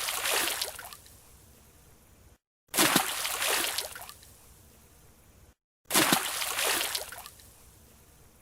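A diver plunging into a pool: a sudden splash that dies away into sloshing water over about a second and a half. The same splash plays three times, about three seconds apart, with a brief dead silence before each new one.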